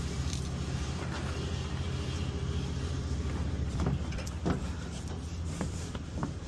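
A motor vehicle's engine running with a steady low hum, with a few short knocks and clicks in the second half.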